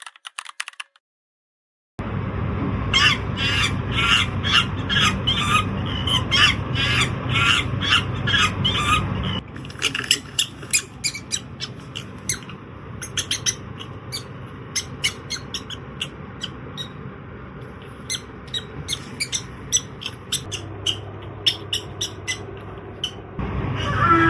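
Bird calls: a run of repeated squawks, about two a second, starting a couple of seconds in. About nine seconds in, they give way to quieter, quick, sharp chirps and clicks.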